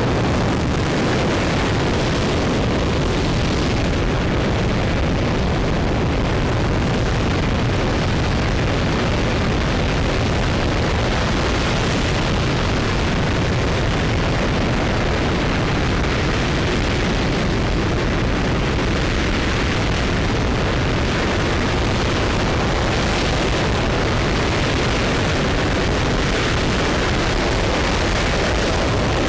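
RS-25 liquid-hydrogen/liquid-oxygen rocket engine firing at full steady thrust in the first seconds of a hot-fire test. A loud, constant rush of noise spread evenly from deep lows to high hiss, without pause or change.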